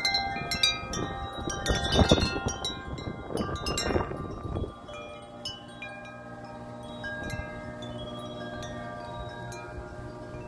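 Wind chimes ringing in gusty wind. For about the first four and a half seconds the strikes come fast and crowded together, along with a rush of wind. After that only an occasional strike sounds, and the tones ring on.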